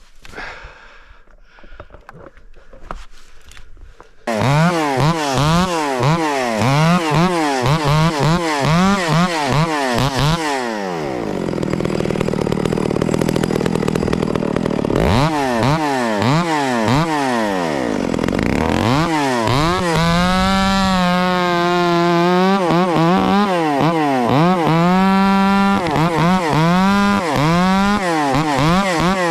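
Echo 670 two-stroke chainsaw coming in loud about four seconds in, its throttle blipped up and down about twice a second. It then runs under load in a cut for a few seconds, blips again, and holds at full throttle for several seconds before blipping once more.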